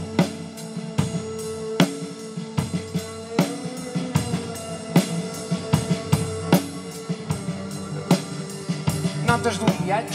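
A live rock band plays without words: a drum kit keeps a steady beat, with a hit about every 0.8 seconds, under sustained electric guitar.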